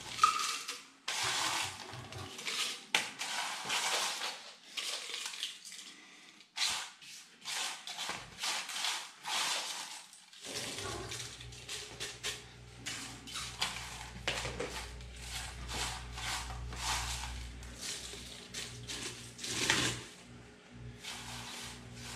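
Dry, oven-baked eggshells crackling and crunching in quick irregular bursts as they are crushed by hand, gathered off a metal baking sheet and packed into a plastic blender cup. A low steady hum comes in about halfway through.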